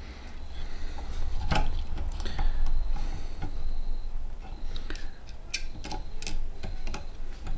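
Scattered small clicks and taps of a screw being fitted by hand into the plastic hotend fan assembly of a Creality Ender 3, over a steady low hum.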